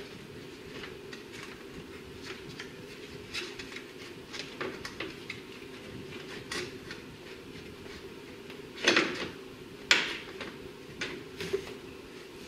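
Scattered light clicks and knocks of plastic and metal parts being handled while the cooling fan assembly is seated against the new radiator, with two louder knocks about nine and ten seconds in, over a steady low hum.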